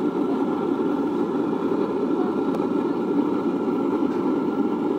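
Universal waste-oil burner running, its electric blower fan forcing the flame into the stove: a steady, even noise.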